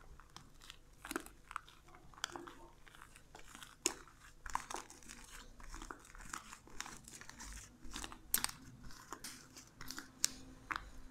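Wet, sticky homemade slime being squeezed and kneaded by hand against a table top: irregular sticky clicks and crackles. The slime is still wet and clings to the hands.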